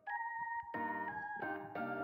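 Background music: a keyboard melody over held chords, with a new chord struck about every half to three-quarters of a second.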